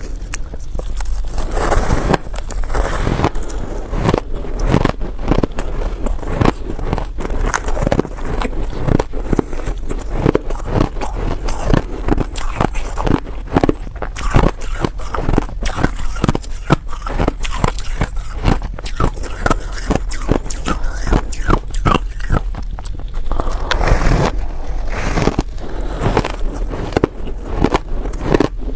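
Close-up crunching and chewing of crumbly reshaped ice, a dense, continuous run of crisp crunches with a powdery crumble.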